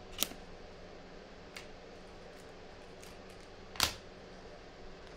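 A few short clicks and taps of trading cards and card boxes being handled on a tabletop, the sharpest about four seconds in, over low room noise.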